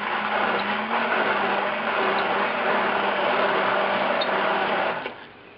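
Electric blender running steadily, puréeing soft cooked beans, then switching off about five seconds in.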